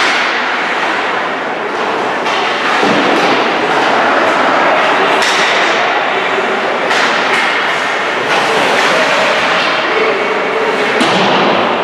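Ice hockey game sound in an echoing rink: sharp cracks of stick and puck striking, or hits on the boards, come at irregular moments, about seven of them, over a steady wash of skating and crowd noise.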